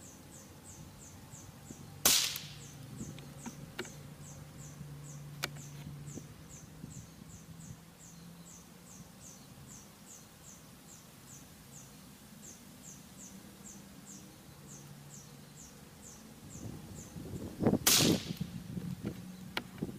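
Two subsonic .22 LR gunshots, Eley Edge rounds clocking about 1,025 ft/s, one about two seconds in and one near the end, each a sharp crack with a short echo. A steady faint chirping, about three a second, runs underneath until shortly before the second shot.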